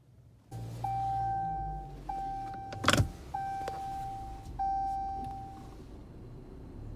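A car's warning chime sounds four times, each a steady held tone about a second long, over a low rumble in the cabin. A single sharp clunk, the loudest sound, comes about three seconds in.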